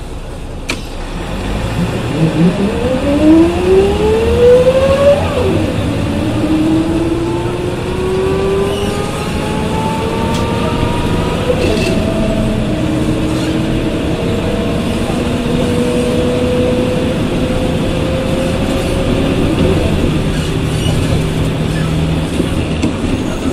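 Ikarus 280 bus with a Rába D10 diesel engine and ZF 4HP 500 automatic gearbox pulling away and accelerating through the gears. The engine and gearbox whine climbs, drops at an upshift about five seconds in and again near halfway, then rises slowly in the higher gear.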